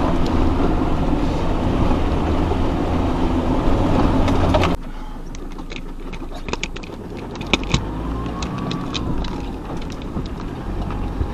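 Off-road vehicle crawling over a rough, rocky track with its engine running and a heavy rumble. About five seconds in the sound drops suddenly to quieter running with scattered clicks and knocks.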